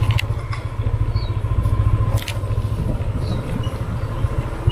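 Small motorcycle engine running steadily at low riding speed, a low pulsing drone, with a few brief clicks about a quarter-second in and again around two seconds in.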